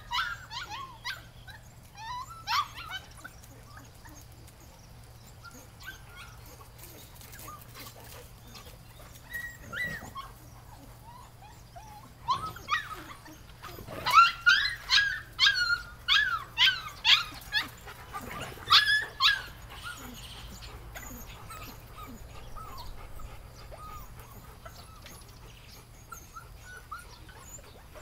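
Puppies yipping and barking in short, high-pitched calls: a few near the start, then a quick run of about a dozen about halfway through.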